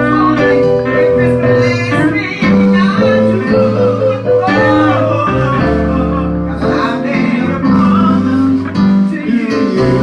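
Gospel song: a singing voice over a band with guitar.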